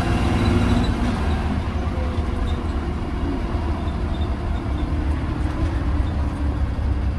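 2020 Blue Bird Vision school bus heard from inside while driving: a steady low engine drone with road rumble.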